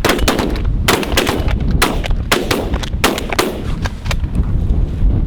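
A volley of shotgun fire from several hunters shooting at geese: about ten shots in quick, irregular succession, overlapping at times, tapering off after about four seconds. Strong wind rumbles on the microphone throughout.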